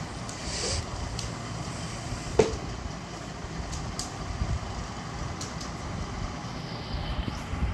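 Plastic clicks of a Pyraminx puzzle being turned by hand: a few sharp, scattered clicks, the loudest about two and a half seconds in, over a steady low background rumble.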